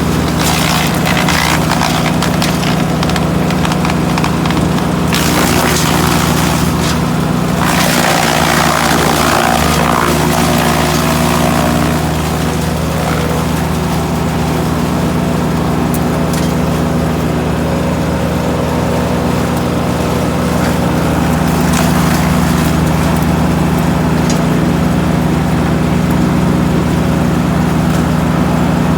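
GreenMech Arborist 150 wood chipper's engine running steadily at a constant speed, with a brief rougher, noisier stretch about eight to eleven seconds in.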